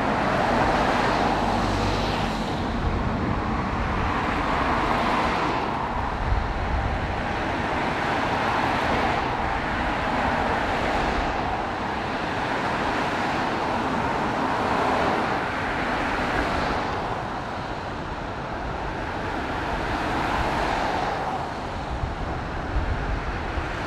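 Road traffic: cars passing one after another, a steady wash of tyre and engine noise that swells and fades every few seconds as each vehicle goes by.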